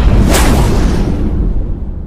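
Logo sting sound effect: a deep booming rumble with a quick whoosh about a third of a second in, fading away over the second half.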